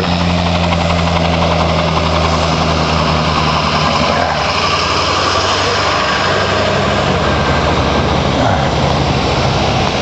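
Motor vehicle engines running: a steady low engine hum for the first few seconds, then an SUV towing a travel trailer drives past close by.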